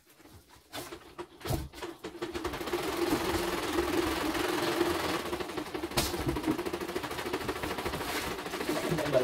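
Portable CNY embroidery machine stitching a test design: a fast, even rattle of needle strokes that starts about two seconds in, after a few clicks as it is set going.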